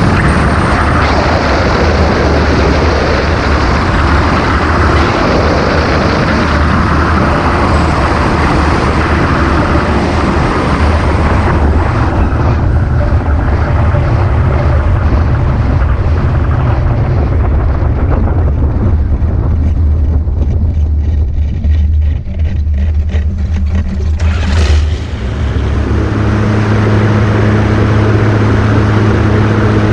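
Wind rushing loudly over the microphone of a flex-wing ultralight trike in flight. About 25 seconds in, the sound cuts abruptly to the trike's engine running steadily, with a clear, even note.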